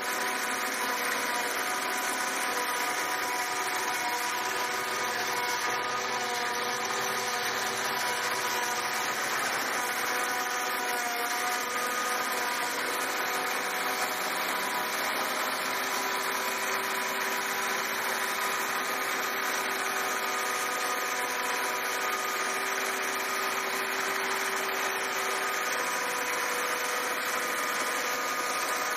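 Farm machinery engine running steadily at a constant speed, with a steady hum of several pitches over a broad mechanical noise.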